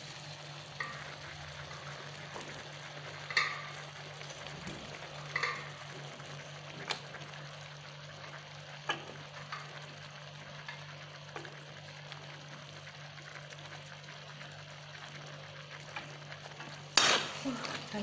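Jackfruit and shrimp frying gently in spice paste in a pan, a faint sizzle under scattered scrapes and taps of a spatula stirring against the pan. About a second before the end the stirring turns into a louder run of quick scrapes.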